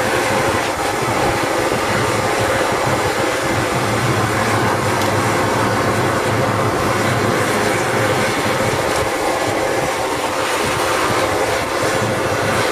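Homemade propane forge burner running, a loud steady rushing noise, while the steel heats in the forge.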